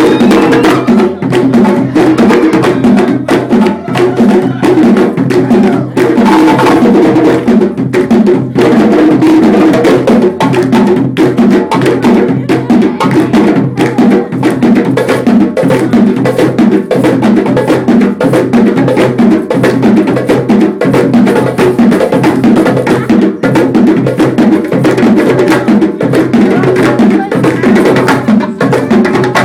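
African hand drumming on djembe-style drums, a fast, steady rhythm of sharp strokes that runs on unbroken, played loud.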